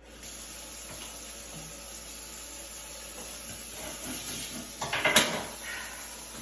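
Kitchen tap running into a stainless-steel sink, a steady hiss of water, with a single sharp knock about five seconds in.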